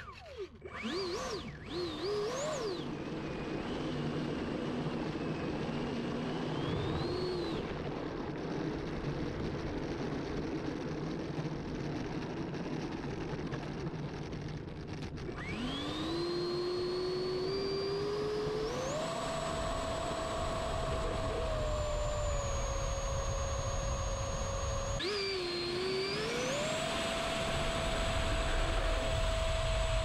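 Electric ducted fan of an Avanti V3 RC jet, heard close up from on board: a few short wavering throttle blips early on, then from about halfway a rising whine that levels into a steady high-pitched full-power whine for the takeoff run, easing off briefly a few seconds later and climbing back to full power.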